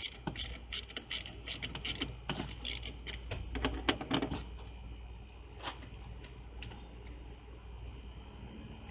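Ratchet wrench clicking in quick, even strokes as the battery terminal is loosened. It stops about four seconds in after a few last scattered clicks.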